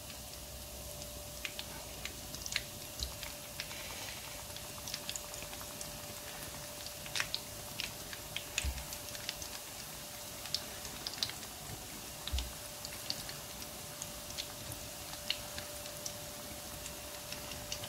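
Twisted beignet dough frying in hot oil in a pan: a steady sizzle with many irregular small crackles and pops.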